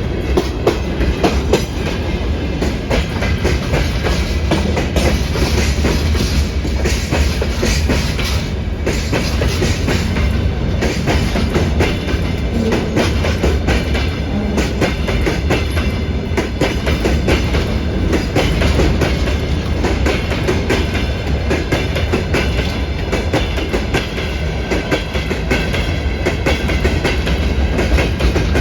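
Freight train rolling past at speed, its wheels clattering steadily over the rail joints with a continuous low rumble.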